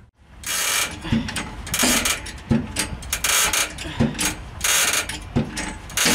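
Socket ratchet wrench clicking in repeated strokes, a little over one a second, as the new leaf-spring shackle bolts are run in.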